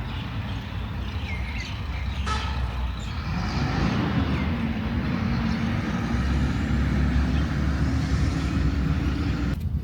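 Motor vehicle engine running close by over low traffic rumble, growing louder about three seconds in with a steady hum, then cutting off suddenly near the end. A bird chirps briefly about a second in.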